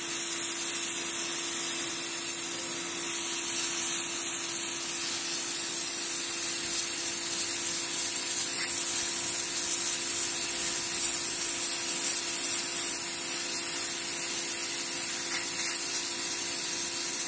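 Raider RD-PHC02 1800 W electric pressure washer running, its water jet spraying onto paving tiles: a steady hiss of spray over a constant motor hum.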